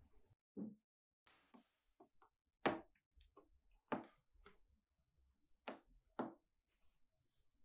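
A handful of short, scattered knocks and taps from a cat moving about on a carpeted cat tree and pawing at its post. The loudest knock comes a little under 3 seconds in.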